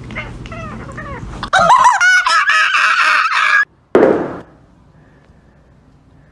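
Domestic cat meowing in a run of bending, talk-like calls, loudest from about a second and a half in, until they cut off suddenly. Just after, a brief rustling burst, then only faint room noise.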